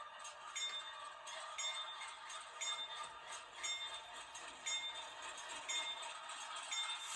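HO scale model diesel locomotive's sound decoder ringing its bell, about two strokes a second, over a faint steady engine sound from the model's small speaker.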